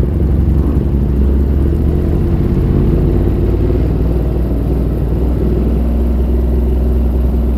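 Motorcycle engine running steadily with a deep, even hum, heard from on the bike, with no revving.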